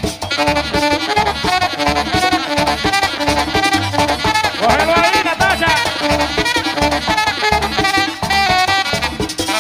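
Live merengue típico band playing: a saxophone runs a fast melodic line over a steady beat from tambora drum, congas and bass guitar.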